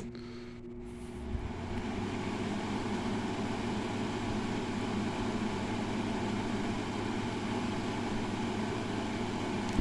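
Frigidaire 5,000 BTU window air conditioner switched on to high fan: a click, a steady motor hum, then a rush of air that builds over the first couple of seconds and holds steady. It is running on the fan alone, with the compressor not yet kicked on.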